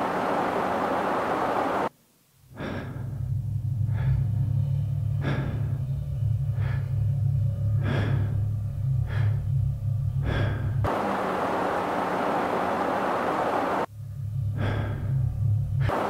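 Short, sharp gasping breaths, roughly one a second, over a low steady drone. These alternate with stretches of steady car road noise heard from inside the cabin, with abrupt cuts between them.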